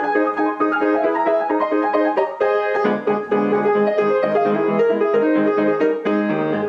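Intro music led by piano, a quick run of notes, with a fuller bass line joining about three seconds in.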